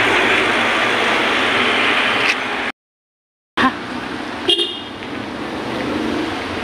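Loud road traffic as a tanker truck drives past close by, then the sound drops out for under a second. After the break, quieter street traffic with one short car horn toot.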